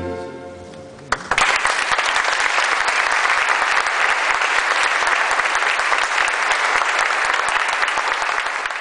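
The choir's last held chord dies away, and about a second in an audience breaks into steady applause.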